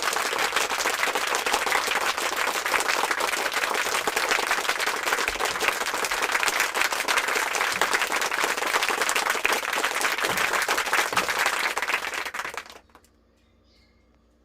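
Fireworks crackling: a dense, continuous rattle of many small pops in quick succession that cuts off suddenly near the end.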